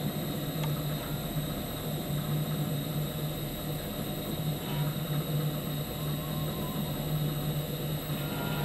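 Ultra 225 planer's powered table drive running with a steady low hum as it raises the table to the 1.5-inch thickness just entered, with a few faint ticks.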